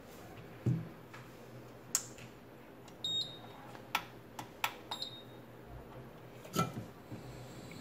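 Scattered light clicks and knocks of small repair tools and a phone being handled on a workbench, about eight separate taps, one with a brief high metallic ring.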